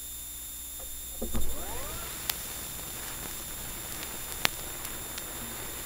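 Vinyl record surface noise from the stylus riding the lead-in groove: a steady hiss and low hum with a few sharp crackle clicks, and one brief louder noise about a second and a half in.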